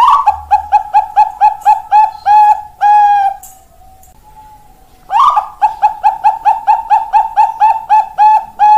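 Zebra dove (Bangkok-bred perkutut) singing its rolling cooing song: a rapid string of short staccato coos, about four a second, ending in a longer coo about three seconds in, then after a short pause a second phrase begins about five seconds in.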